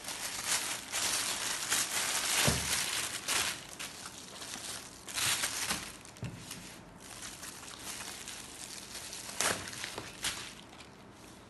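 Clear plastic bag and bubble wrap crinkling and rustling as a camera body is unwrapped from them. The rustle comes in dense bursts over the first few seconds, then in shorter bursts later, with a low knock about two and a half seconds in.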